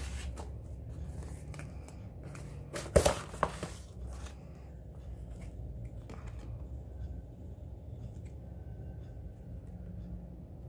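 Cardboard shipping box being handled and opened: rustling and scraping of cardboard, with two sharp cracks about three seconds in, then quieter handling of paper cards.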